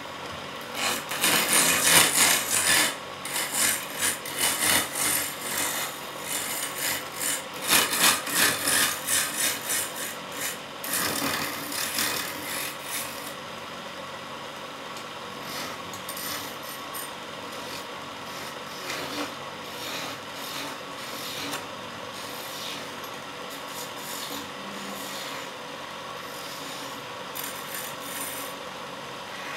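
Hand-held gouge cutting a spinning wooden spindle on a wood lathe: a rasping scrape of tool on wood, heavy and loud for the first dozen seconds or so, then lighter, intermittent cuts.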